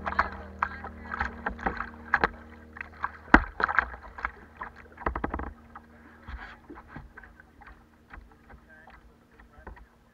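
Kayak moving down a river, river water splashing and lapping right at the microphone at the waterline, with many irregular sharp splashes; the splashing thins out in the last few seconds.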